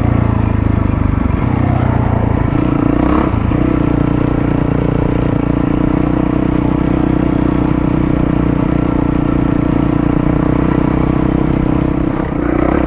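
Single-cylinder 450 four-stroke dirt bike running under way, heard from the rider. The engine note breaks briefly about three seconds in, then holds steady, with another short dip near the end.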